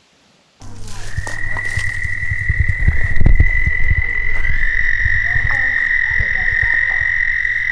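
The channel's intro soundtrack: a loud, steady high-pitched tone held for several seconds, with low thumps beneath. It starts suddenly.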